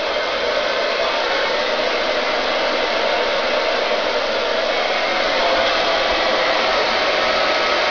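Handheld hair dryer running steadily, its air rush and motor noise unbroken throughout.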